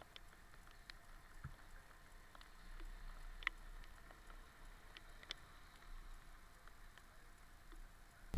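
Faint, scattered ticks of raindrops, irregular and sparse, over an otherwise very quiet background.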